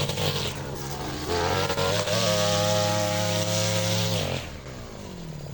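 A handheld power tool's motor running fast, easing off about half a second in, speeding back up and holding, then released near the end so its pitch falls away.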